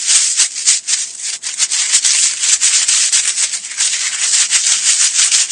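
Cartoon sound effect: a dense, dry scratchy rattle packed with small clicks, like a shaker or sandpaper rubbed hard. It starts abruptly and keeps up at a steady level.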